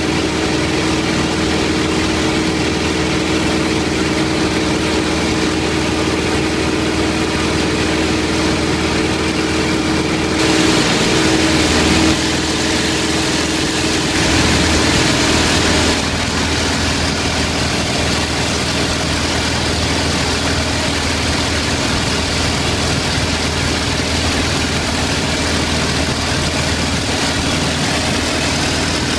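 Cockpit noise of a T-28C Trojan in flight: its Wright R-1820 nine-cylinder radial engine running steadily with a constant drone, heard from inside the canopy. For several seconds in the middle the sound gets a little louder and hissier before settling back.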